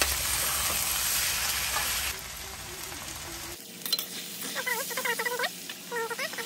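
Dal and diced vegetables frying and sizzling in a stainless steel pan while a metal spatula stirs them; the sizzle fades after about two seconds. Near the end come a few clicks and short, high, wavering vocal sounds.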